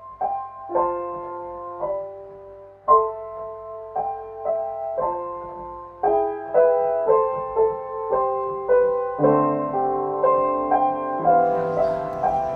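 Background piano music: a gentle melody of single notes that fills out with chords and lower notes about nine seconds in.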